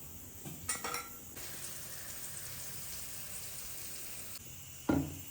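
Oil sizzling in a cooking pan, with a few metal clinks of a utensil against the pan about a second in and a single knock near the end.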